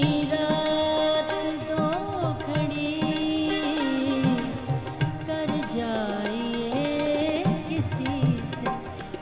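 A woman singing an Urdu ghazal with tabla accompaniment, holding long notes and ornamenting them with quick melodic turns.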